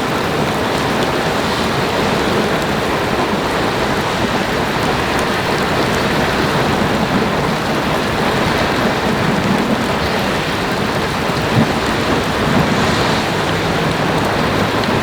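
Steady rushing noise of strong wind and rough lake water, with a low rumble of wind on the microphone.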